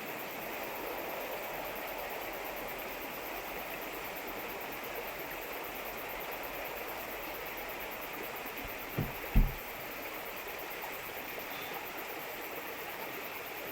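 A steady rushing noise, with two dull low thumps in quick succession about nine seconds in.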